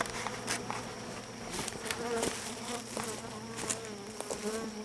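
Honeybees buzzing around an open hive, the pitch wavering up and down as individual bees fly close past, with a few light clicks.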